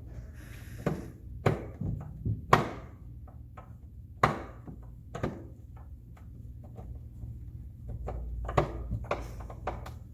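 Hard plastic dollhouse parts being handled and fitted together: irregular sharp knocks and clicks, a dozen or so, the loudest about two and a half and four seconds in.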